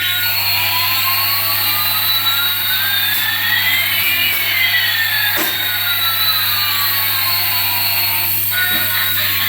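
A jet-engine-like hissing noise with two whines, one rising and one falling in pitch, that cross about four seconds in; it cuts off about a second before the end. A steady low hum runs underneath.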